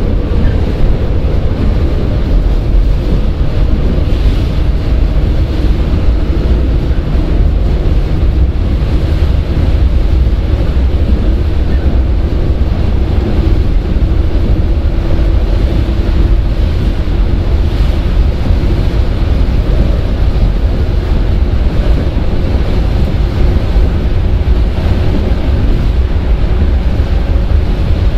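Running noise of a JR 115 series electric train, heard from inside the motor car MoHa 114: a steady, loud low rumble of wheels and traction motors, with a faint steady motor and gear tone above it, as the train cruises.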